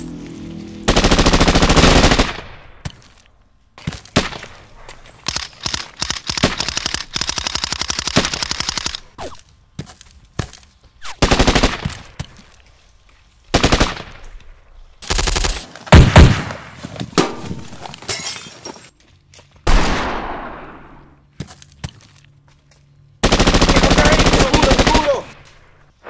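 Bursts of automatic gunfire in a firefight: runs of rapid shots one to three seconds long, with single shots and short gaps between, and a long burst near the end.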